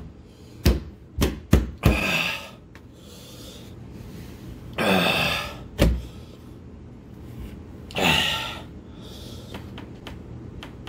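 A man gasping and groaning in pain from chilli burn, three long breathy groans that fall in pitch, after a few sharp knocks about a second in.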